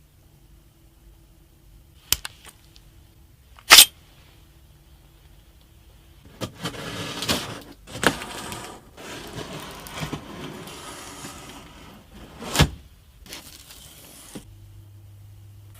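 Hands handling PC parts and their packaging: a couple of light clicks, then one sharp snap. Several seconds of rustling and scraping with a few knocks follow, one of them loud.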